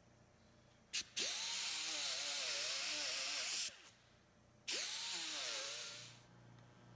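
A straight die grinder with a small abrasive disc runs twice against small cast bronze grape clusters. After a brief blip about a second in, each run is a loud hissing whine that spins up and then wavers in pitch as it works the metal. The first run lasts about two and a half seconds; the second, a little over a second, fades out.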